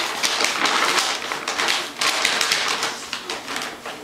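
An empty dog food bag crinkling and rustling in quick, irregular crackles as a dog noses around with her head inside it.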